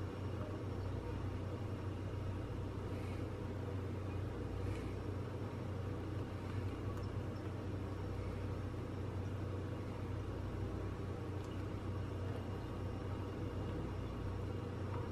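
Steady low hum with a faint rumble underneath, unchanging throughout.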